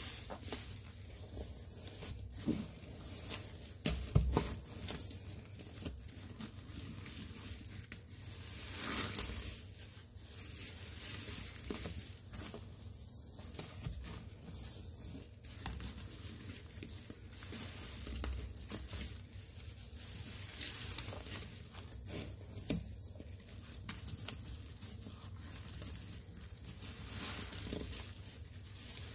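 A sponge squeezed and kneaded by rubber-gloved hands through a thick, foamy cleaning paste of Comet powder, Ariel detergent and Fabuloso: irregular wet squelches and crackles, with a few sharper clicks.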